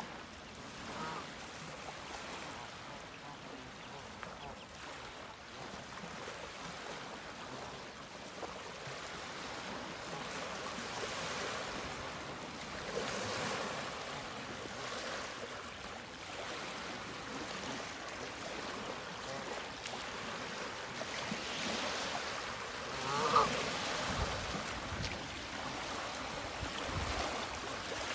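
Mallard ducks giving a few short quacks over a steady outdoor hiss, the loudest call a little after three-quarters of the way through, with some low bumps near the end.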